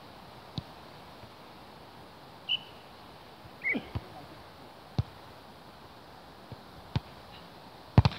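A volleyball being struck by hands and forearms in a beach volleyball rally: a string of sharp slaps a second or so apart, the loudest a quick double hit near the end as the ball is spiked. Two short high chirps come between the hits.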